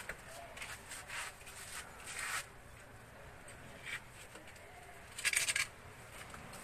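Bamboo slats being handled, making scattered short scrapes and rustles. The loudest is a half-second scrape about five seconds in.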